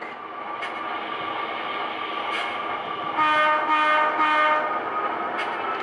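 HO scale model locomotive's sound decoder playing a diesel engine running steadily, then three short blasts of a multi-chime air horn a little past three seconds in: the railroad signal for backing up.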